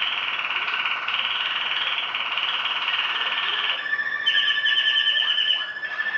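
Malinois Waterslager canary song: a dense rolling phrase, then about four seconds in a change to a held note under a fast pulsed trill.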